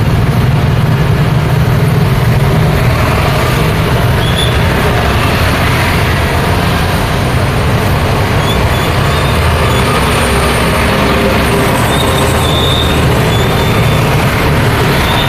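Busy road traffic: a continuous mix of passing vehicles' engines and tyre noise with a deep engine rumble, strongest in the first couple of seconds. A few brief high squeaks come through the traffic.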